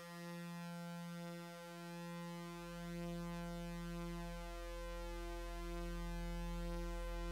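Electronic music: a sustained synthesizer drone of steady stacked tones that swells and dips slowly, joined by a deep bass note about two and a half seconds in.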